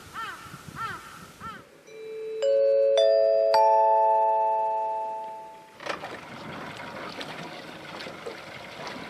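Birds calling briefly. The sound then cuts to a four-note chime, bell-like notes struck one after another on rising pitches that ring out and fade over about three seconds. After it comes the steady noise of a boat on the water.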